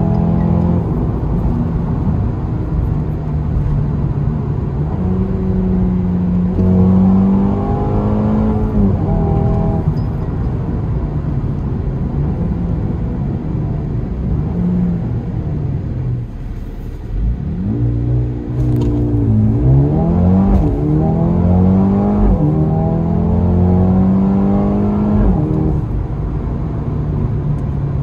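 Mercedes-AMG A35's turbocharged 2.0-litre four-cylinder engine heard from inside the cabin, its revs rising and falling with gear changes at road speed. About two-thirds of the way through the revs drop back, then climb again in quick steps through several upshifts under hard acceleration.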